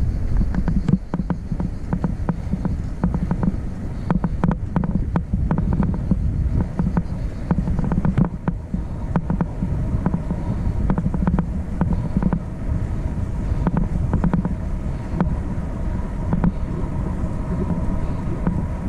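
A vehicle on the move: a steady low rumble with many small rattles and knocks over it.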